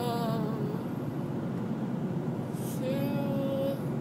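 Steady road and engine rumble inside a moving car's cabin. A person's voice makes a short, drawn-out wavering sound at the start and a held, hum-like tone about three seconds in.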